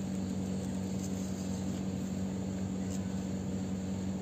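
Steady low hum with a faint hiss, the background noise of the recording.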